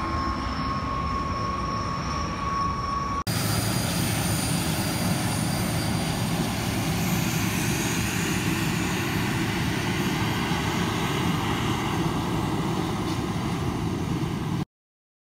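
Canadair CT-114 Tutor jets taxiing, their turbojet engines running with a steady high whine over a dense rushing noise. About three seconds in, the sound jumps to a louder, fuller jet noise, and near the end it cuts off suddenly.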